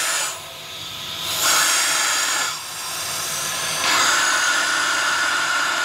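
Air hissing into the Harvest Right freeze dryer's vacuum chamber through its hose as the vacuum is released. The hiss drops and swells twice, holding steady from about four seconds in, as kinks that had been blocking the air are worked out of the hose.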